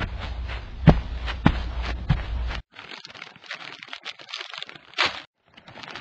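Footsteps, a step about every 0.6 seconds, ending abruptly about two and a half seconds in. Fainter scattered noises follow, with one sharp sound near the end.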